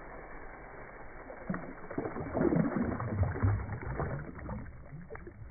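Water splashing and sloshing at the pond's edge as two bass are let go by hand and kick away, loudest from about two to four seconds in.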